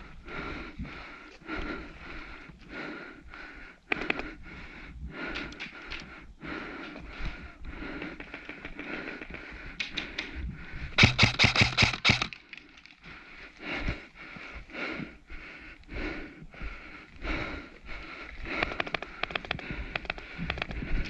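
Irregular footsteps and gear knocks, with a loud rapid string of clicks for about a second near the middle: an airsoft rifle firing a full-auto burst.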